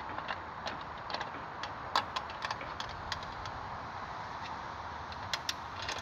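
Scattered light clicks and ticks from a bicycle over a steady hiss, thickest in the first three seconds, with a pair more near the end.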